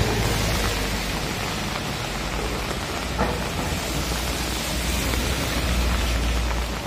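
Light rain falling steadily on a wet paved street and on an umbrella held over the microphone, an even hiss with a low rumble underneath.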